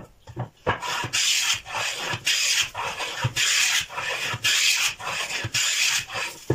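Wooden hand plane cutting along the edge of a wooden board: a series of long scraping strokes, about one a second, each peeling off a long shaving.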